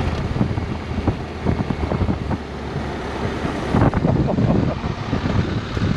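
Motorcycle on the move: wind buffeting the microphone over a low steady engine hum, with irregular crackles and knocks throughout.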